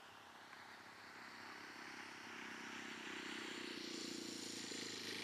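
Saito FG-20 20cc four-stroke gasoline engine of a model Cessna 182 running steadily and growing louder as the plane comes in close and lands on the grass.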